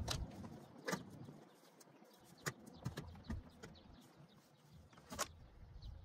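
A handful of sharp, separate clicks and knocks from hands working the metal parts of a rooftop RV air conditioner, with a low rumble in the first second or so.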